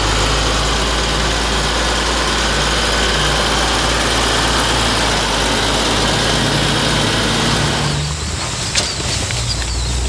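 A tractor engine running while a vertical tub mixer wagon's discharge conveyor throws feed into a feed bunk: a loud, steady mechanical rush over a low engine hum. About eight seconds in it gives way to quieter outdoor sound with a few faint high chirps.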